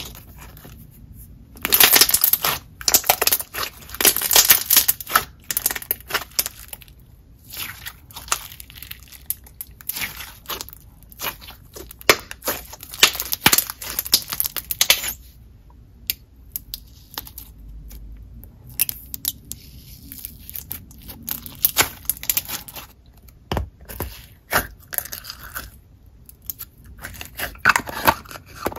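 Hands squishing and folding a clear jelly-cube slime, making a run of wet, sticky clicks and pops. The clicks come thick for the first half and grow sparser after, with a short flurry again near the end.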